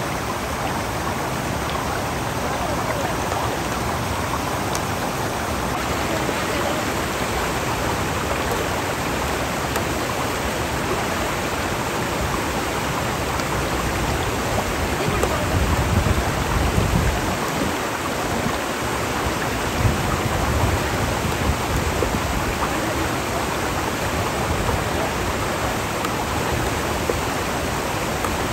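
Steady, even rushing noise, with a few louder low rumbles around the middle.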